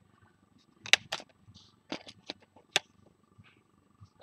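Needle-nose pliers handling the small plastic servo horns inside a foam model-plane fuselage: a handful of sharp clicks between about one and three seconds in, over faint handling rustle.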